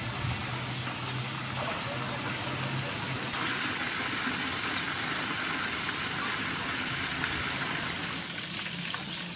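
Steady sizzling hiss of sauce cooking in a frying pan, with a few light spatula scrapes at first, changing abruptly to a brighter, slightly louder hiss about three seconds in.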